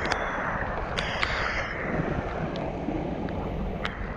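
Wind buffeting the microphone over surf washing against shoreline rocks, a steady rushing noise that swells a little in the middle, with scattered sharp ticks.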